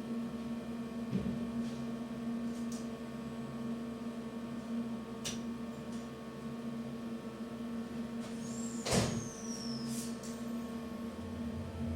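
Railway ambience: a steady low mechanical hum with a few sharp clicks, a louder knock about nine seconds in, and a thin high squeal that falls in pitch just after it.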